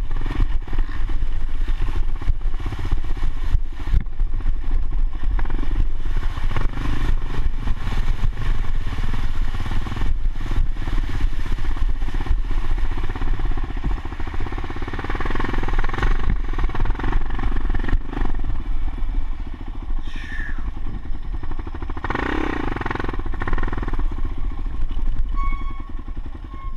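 Motorcycle engine running steadily under way, with frequent clattering knocks. Louder, rougher stretches come about halfway through and again about two-thirds of the way through.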